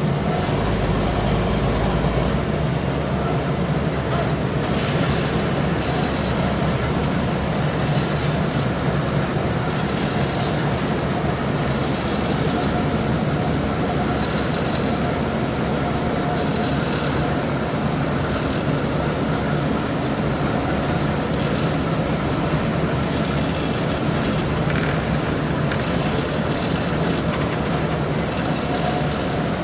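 Diesel road-paving machinery running steadily, with a low engine hum. From about five seconds in, a high-pitched rattle recurs roughly every two seconds.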